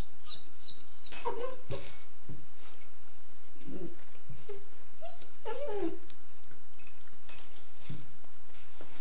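A German Shepherd puppy whimpers in short high whines and mouths a plush toy, with scuffling, rustling and a few sharp clicks.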